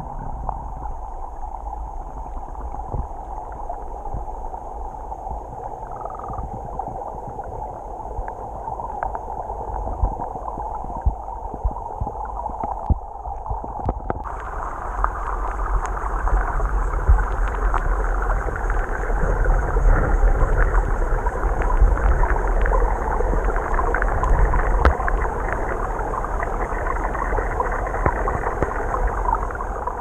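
Muffled rush of moving stream water heard through a submerged camera, with a steady low rumble and many small crackles and ticks. About halfway through it grows louder and brighter and stays so.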